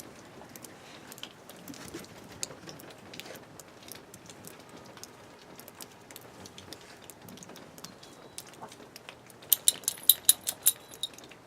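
Faint scattered ticks and soft patter, then a quick run of bright metallic jingles near the end, typical of dog collar tags jingling as the dogs move about in snow.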